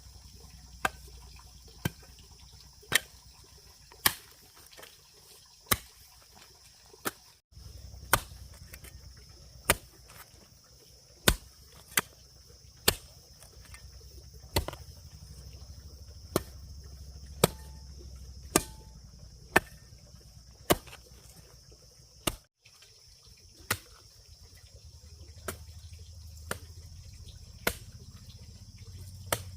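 Repeated sharp chopping or knocking strikes, irregular at roughly one a second, over a steady high hiss and a low rumble.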